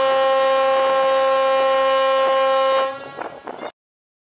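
Ferry MV Puget Sound's ship horn sounding one long, steady blast that stops about three seconds in, followed by a brief fainter tail.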